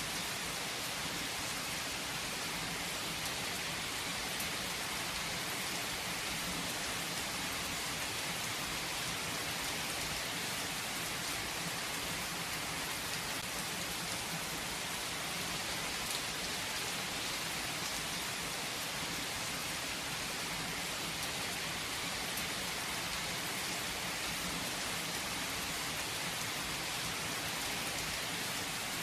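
Steady rain falling as an even, unbroken hiss.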